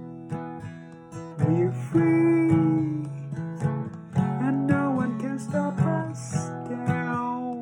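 Acoustic guitar music: strummed chords in a steady rhythm, with a melody line over them that slides between notes.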